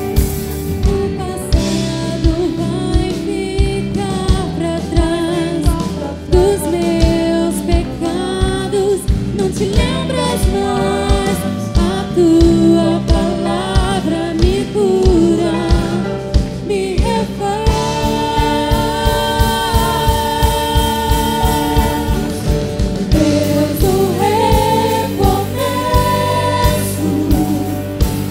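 Gospel worship song sung in Portuguese by several singers over a band with a steady drum beat.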